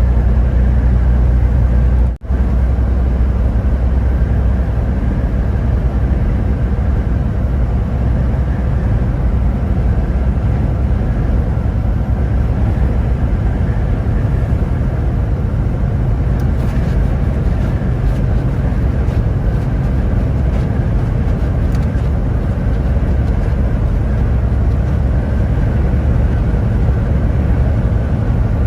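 Steady low rumble of a vehicle on the move, with a very brief dropout about two seconds in.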